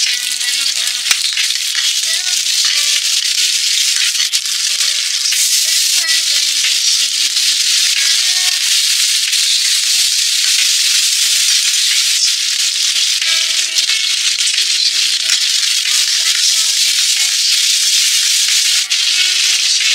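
Oil sizzling steadily in a stainless-steel wok as bean paste and aromatics are stir-fried with a metal spatula, with an occasional light click of the spatula.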